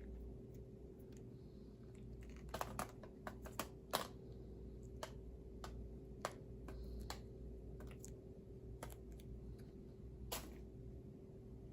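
Irregular light clicks and taps, a quick cluster of them about two and a half to four seconds in and then single ones every second or two, over a steady low electrical hum.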